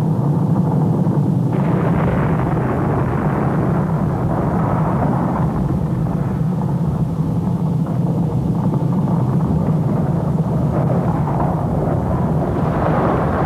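Volcanic eruption: a loud, continuous deep rumble that turns harsher and brighter near the end.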